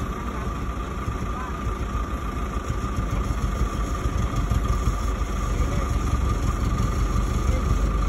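Diesel truck engine running steadily under load with a steady whine, as one truck strains on a tow rope to pull a loaded dump truck out of deep mud; it grows slightly louder toward the end.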